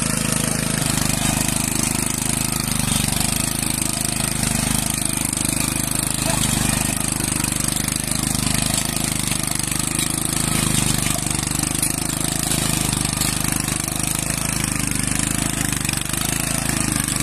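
Small rotary tiller's engine running steadily while it tills a boggy, muddy paddy field.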